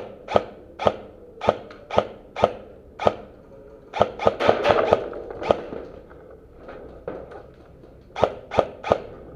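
Airsoft rifle firing single shots, sharp cracks with a short echo, roughly two a second, then a quick string of shots about four seconds in. Fainter pops follow about seven seconds in, and three more shots come near the end.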